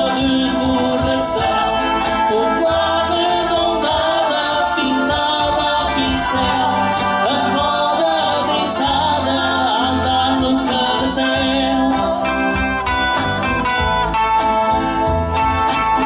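A live folk band playing: accordion, strummed acoustic guitars, bass guitar and a box drum, with male and female voices singing. The singing gives way to the instruments alone in the last few seconds.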